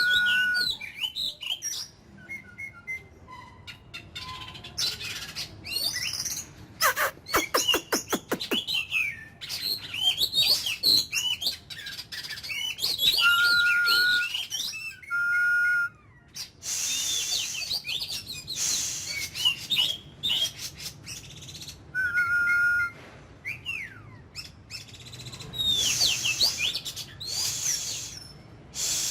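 Oriental magpie-robin singing a long, varied song of quick whistled phrases and warbles, with a rapid run of clicking notes and several held, level whistles.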